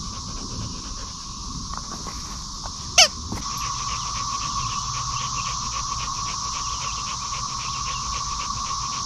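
A single short, loud squeak from a squeaky dog toy about three seconds in, over a steady high-pitched insect drone.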